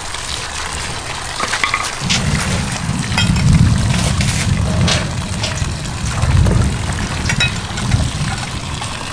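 Tap water pouring into a metal basin, with splashing and sloshing as handfuls of water spinach are lifted and rinsed. A low rumble, like an engine or pump, joins about two seconds in and drops away near the end.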